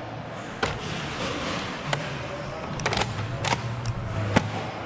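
Several sharp knocks and pops at irregular intervals from a Nerf Rival foam-ball game: blasters firing and balls striking barriers, in a large echoing hall, over a low steady hum.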